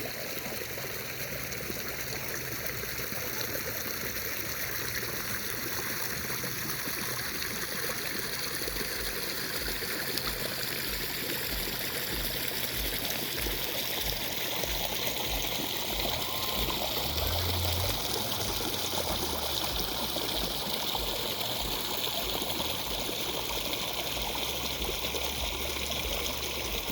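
River water flowing and trickling over stones, a steady rushing and babbling.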